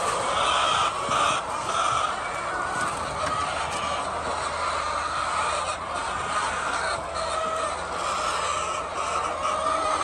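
Large flock of laying hens clucking and calling all at once, a steady, dense din of overlapping calls.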